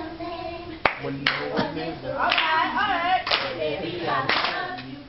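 A group clapping together on a slow, steady beat, about one clap a second, with voices singing along between the claps.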